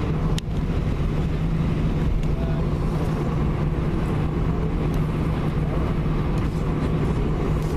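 Airbus A320 engines and cabin heard from a window seat while the airliner taxis: a steady drone with a low hum. A brief click and short dip in level come about half a second in.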